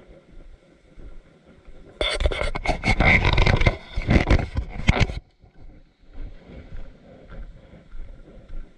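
A loud scraping, crackling rustle right at the microphone for about three seconds, starting about two seconds in and cutting off suddenly, over faint wind noise.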